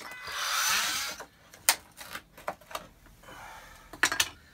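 Oscillating multi-tool cutting into a fibreglass (GRP) wall panel for about a second, making the opening for an electrical back box. Several sharp knocks and taps follow.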